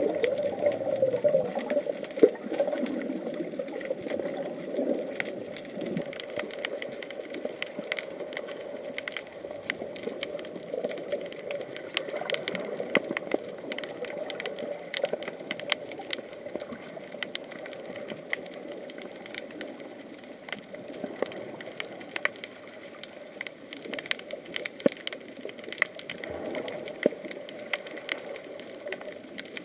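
Underwater ambience picked up by an action camera below the surface: a steady muffled water rush with a dense, irregular crackle of sharp clicks over it. The rush is strongest in the first few seconds.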